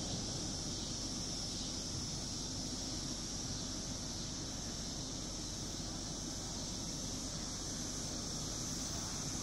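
Steady outdoor ambience: light wind rumbling on the microphone under an even, high-pitched hiss, with no distinct events.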